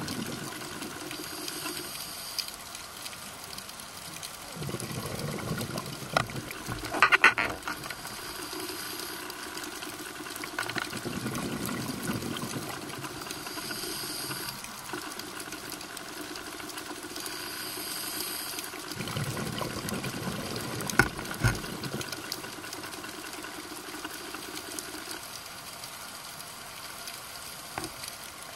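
Underwater recording of a scuba diver's breathing: a hiss on each breath in and a rumble of bubbles on each breath out, repeating every several seconds, with a few sharp clicks.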